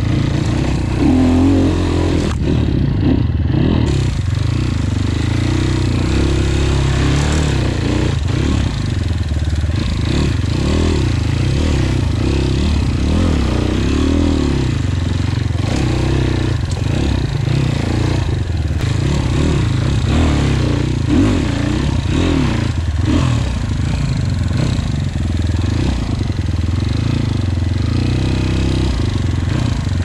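A 250 cc enduro motorcycle engine heard from on board the bike while it is ridden. The revs rise and fall continually as the throttle is worked on and off through the trail's bumps and turns.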